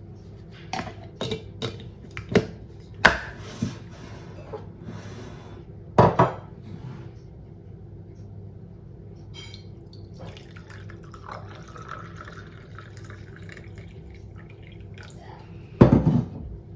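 Kitchen glassware and utensils clinking and knocking, a quick run of clinks in the first few seconds and heavier knocks about six seconds in and near the end, with liquid trickling in between, as the remedy is handled and poured.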